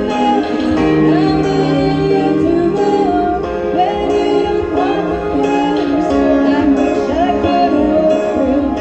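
A woman and a young boy singing a song together into microphones, amplified through a PA, over instrumental accompaniment.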